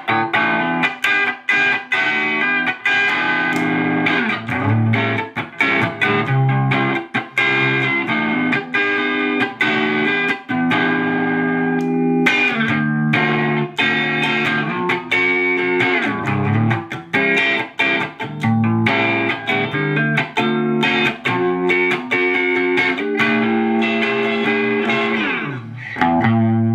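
Electric guitar played through a TS-9 Tube Screamer–style overdrive pedal into a 50-watt valve guitar amplifier, with the pedal's output level raised: continuous overdriven riffs and chords, ending on a chord left to ring.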